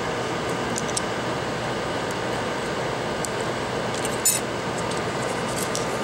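Steady fan-like background hiss with a few light clicks and taps from handling the opened iPad mini's parts, the loudest about four seconds in.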